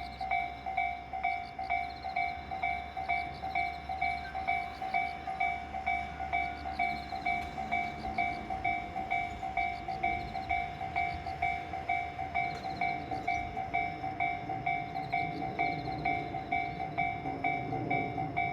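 Japanese level-crossing alarm ringing, an even electronic ding repeated about two and a half times a second, with a passing train's rumble underneath that grows fuller in the last few seconds.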